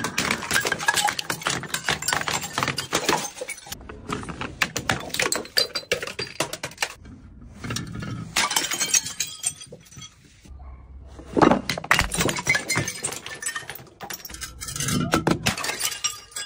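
Glass jars and bottles smashing as they tumble down concrete stairs, with shards clinking and skittering across the steps. There are about five separate bouts of crashing and tinkling.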